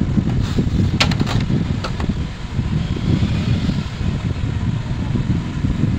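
Steady low rumbling background noise, with a few light clicks about a second in as the opened CRT television's chassis is handled.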